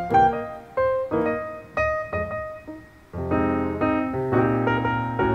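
Background piano music. The notes thin out and nearly stop about three seconds in, then it picks up again with fuller chords.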